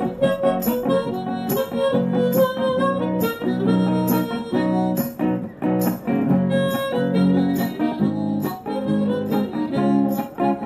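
Harmonica playing a melody over steadily strummed acoustic guitar: an instrumental break between verses of a country song, played live by one performer.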